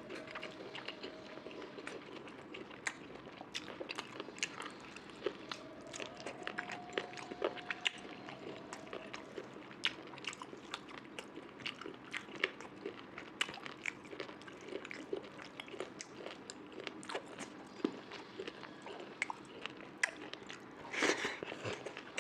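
Close-miked eating: steady chewing and biting with frequent small wet clicks and crunches, and one louder burst near the end.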